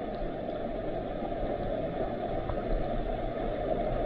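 Stream current rushing over a stony riverbed, recorded by a camera under the water: a steady, muffled rush with most of its weight low down.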